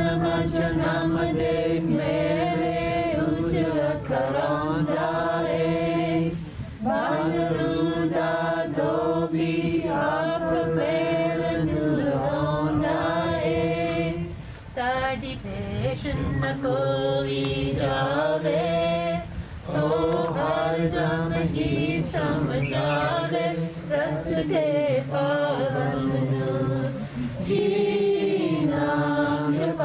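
Group of voices singing a devotional chant in unison, in long held phrases of a few seconds each with short breaks for breath.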